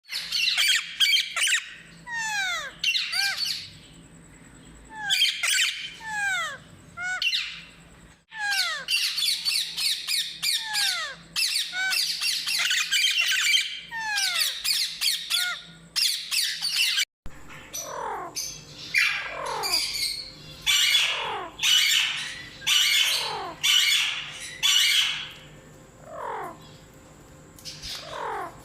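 Alexandrine parrot squawking and calling over and over, harsh calls mixed with quick falling-pitch notes, in rapid runs broken by short pauses.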